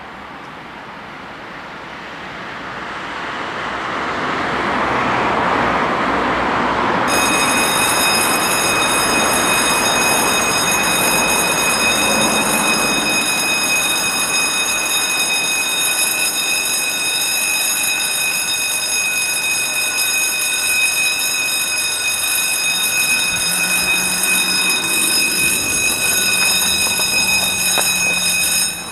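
The level crossing's warning bells start ringing suddenly about a quarter of the way in, a steady high ringing tone. They stop abruptly near the end, once the barriers are fully down. Before the bells, a broad rushing noise swells and fades, and a low motor hum runs under the ringing in the last few seconds as the barriers lower.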